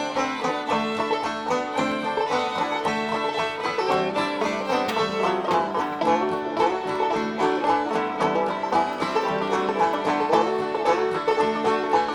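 Background string-band music led by a picked banjo, with a steady rhythm throughout.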